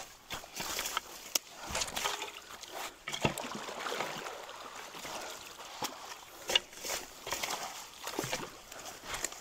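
Creek water sloshing and splashing irregularly as people wade and push branches and log debris with long-handled tools, with a few short, sharp knocks.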